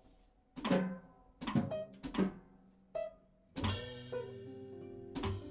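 Small jazz band of guitars and drums playing four short, separate chord stabs, about one every three-quarters of a second. At about three and a half seconds in the band holds a sustained chord with a low bass note, struck again near the end.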